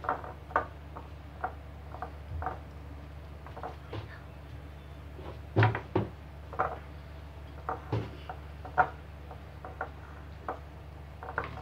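Gloved hand working damp biscuit crumbs in a glass bowl on a marble counter: scattered soft knocks and taps of the bowl, about one or two a second, the loudest a little before the middle and again about eight seconds in.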